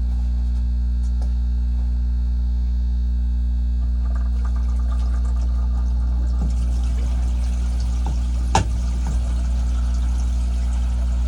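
Water rushing through the plumbing into a newly fitted well pressure tank, the rushing hiss growing stronger about two-thirds of the way in, over a steady low hum. One sharp click sounds near the end.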